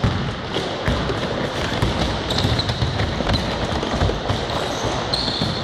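Basketballs bouncing on a hardwood gym floor, with a few short sneaker squeaks, over a steady low rumble of the hall.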